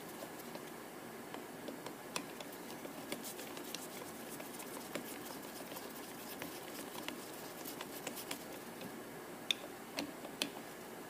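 Scattered light clicks and ticks of small screws and a driver being worked into a GM Quadrajet carburetor's top during reassembly, with a few sharper clicks near the end, over a faint steady hiss.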